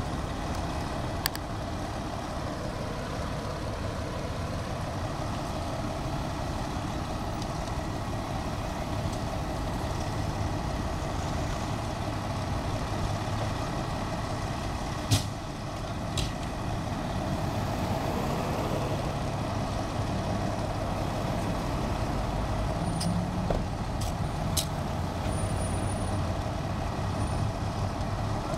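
A fire engine's diesel engine idling in a steady rumble, broken by a few sharp knocks and clicks, the loudest about fifteen seconds in.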